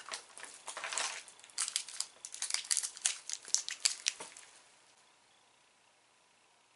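Crinkling snack packaging as a wrapped mini Kit Kat is pulled from its bag and handled: a quick run of crackles that stops about four and a half seconds in, leaving faint room tone.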